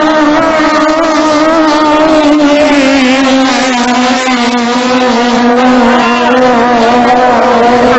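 Long-tail racing boat engine running at full throttle, one steady high-pitched drone that sags slightly about three seconds in and then holds.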